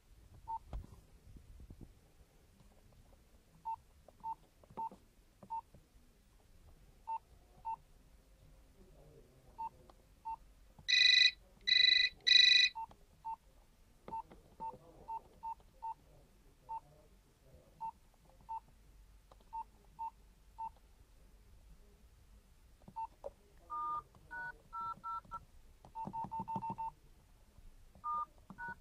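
Key beeps from a Nokia 101 mobile phone as its buttons are pressed to step through the menus: many short single beeps a fraction of a second to a second apart. About a third of the way in come three loud, higher beeps in a row. Near the end there are quick beeps at a few different pitches and then a rapid stutter of tones.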